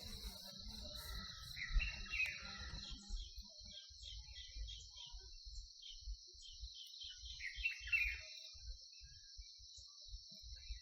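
Steady high-pitched insect chorus of crickets trilling, with two short bursts of bird calls, about two seconds in and again near eight seconds, with low rumbling underneath.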